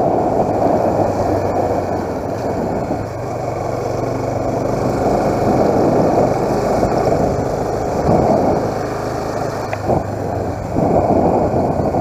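Motorcycle engine running steadily as the bike rides along, under a dense rush of wind noise on the microphone.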